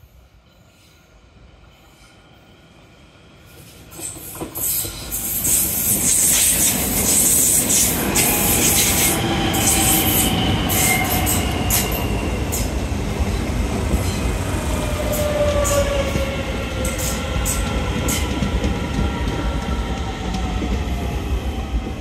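Irish Rail 8520 class DART electric multiple unit arriving into the station: the rumble grows loud about four seconds in, with wheels squealing and clicking over the rail joints. Several motor whines fall slowly in pitch as the train slows.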